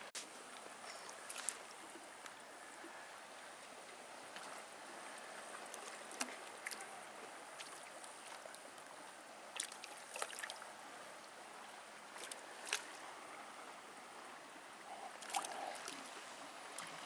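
Faint, steady wash of choppy water below a pier, with a handful of short sharp slaps and ticks scattered through it.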